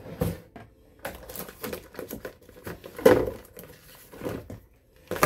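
Handling noise close to the microphone: irregular clicks, taps and rustles, with one louder knock about three seconds in.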